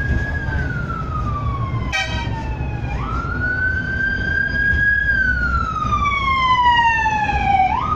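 A wailing siren, its pitch sliding slowly down and then jumping back up, twice, over the low running rumble of a tram on its track. A brief sharp click comes about two seconds in.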